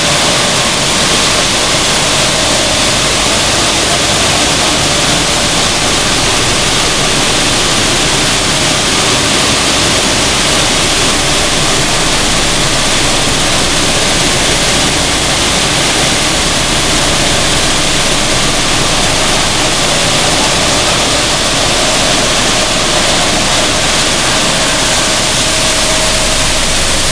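Sunflower seed hulling and sorting machinery running: a loud, steady rushing noise of seeds pouring through chutes and over vibrating sieves, with a faint steady tone underneath.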